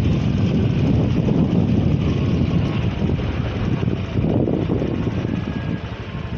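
Loud, steady low rumble of vehicle noise, with no distinct horn tune.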